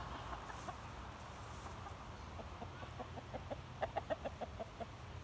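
Chicken clucking: a quick run of short clucks, about six a second, starting about halfway in and loudest near the end.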